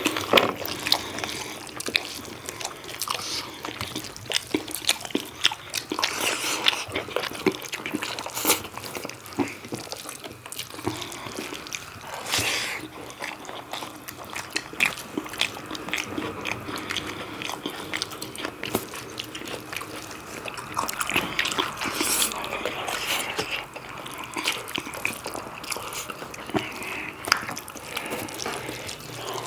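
Close-up mukbang eating sounds: wet chewing of pork curry and rice, a steady stream of small, sticky clicks and squelches.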